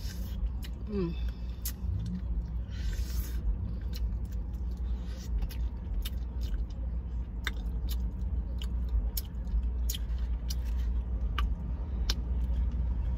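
A person chewing and biting crispy fried chicken close to the microphone, with many small sharp crackles, over a steady low rumble of the car cabin.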